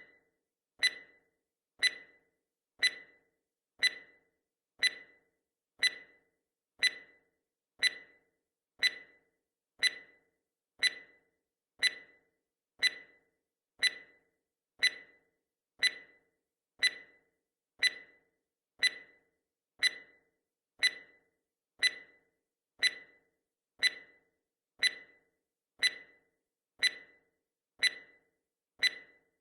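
Countdown timer's ticking sound effect: one sharp, clock-like tick each second, evenly spaced, each dying away quickly.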